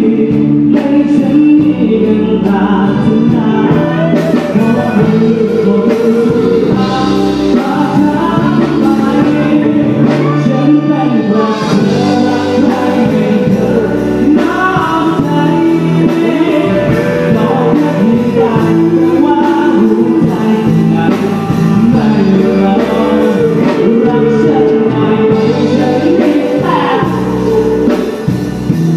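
Live band playing through a PA during a sound check, a singer's voice over guitar and band backing, loud and continuous.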